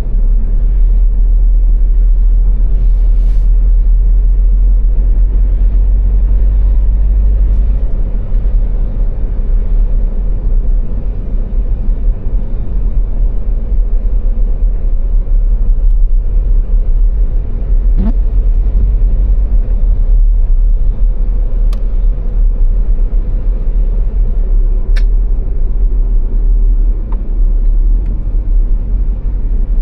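Car driving at motorway speed: a steady, loud low rumble of engine and tyre road noise, with a few faint short clicks now and then.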